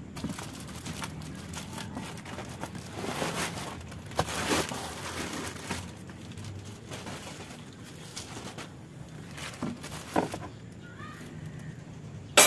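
Clear plastic wrapping crinkling and a cardboard box rustling as hands work inside it, with a few small knocks and one sharp, loud knock at the very end.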